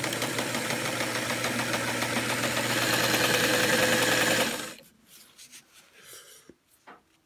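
Singer 237 sewing machine running and stitching through scrap fabric: a steady hum under a fast needle-and-feed clatter that speeds up and grows louder a little before the 3-second mark. It stops abruptly about four and a half seconds in, with a few light clicks after. The machine is now threaded correctly and forming stitches.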